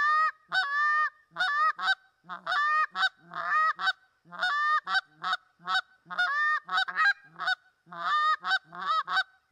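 Canada goose call, a hand-held short-reed call, blown in a quick series of honks with a pitch break, about two a second, some short and some drawn out: calling geese back, shifting towards basic welcome honks as the birds respond.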